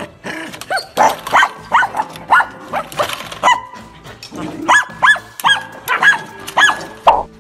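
Curly-coated dog barking in a quick series of short, high barks, in two runs with a brief pause between them.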